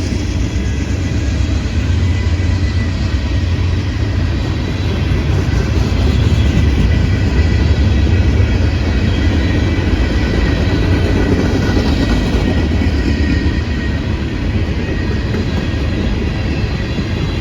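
Norfolk Southern freight train's cars rolling past on the rails, a steady, deep rumble of wheels on track.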